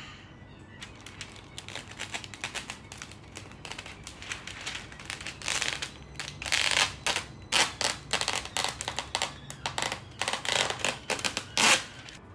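Baking paper crackling and rustling as it is pulled out of its box and handled. It comes in quick, crisp bursts that start about a second in and are loudest around the middle and near the end.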